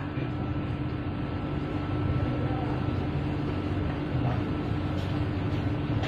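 Steady machine hum, a low drone with a held tone above it, with a few faint light ticks in the second half.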